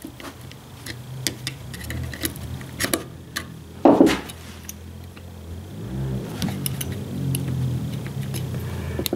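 Small metal distributor parts (breaker points, screws, a washer) clicking and tapping as they are handled and worked loose with hand tools, irregularly, with one louder, duller knock about four seconds in, over a low steady hum.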